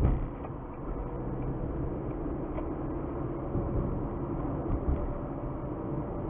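Car driving along the road: steady engine and tyre noise, with a low thump right at the start.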